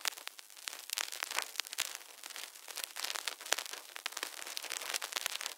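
Faint, dense crackling and popping noise with no bass, irregular clicks scattered throughout, in the opening of a hip-hop track.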